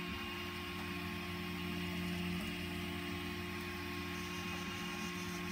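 EZ-B servo slowly turning the 3D-printed plastic gear train of a Drupp robot neck, a low steady hum that runs smoothly without snagging.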